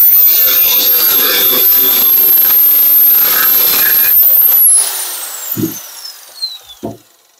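Electric angle grinder with a cutting disc notching a steel section, grinding with a steady high whine. About four seconds in it is lifted off and switched off, and its whine falls in pitch as the disc spins down. A couple of low knocks follow near the end.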